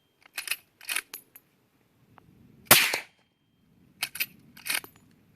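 Suppressed Mossberg 464 lever-action .30-30 rifle with an AAC 762 SDN-6 suppressor firing one shot, near the middle. The lever is worked before and after the shot, giving a few sharp metallic clacks each time.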